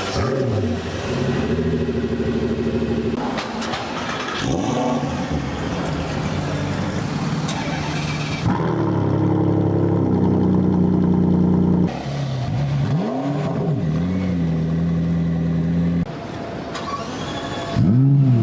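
A run of different car engines, one after another, each starting and idling with sudden changes between them, and short blips of revs about 13 seconds in and near the end.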